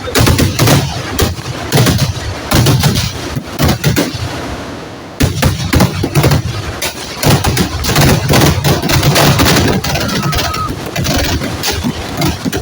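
Rapid, dense volleys of firecracker bangs, loud and nearly continuous, easing off about four seconds in and bursting back in abruptly a second later.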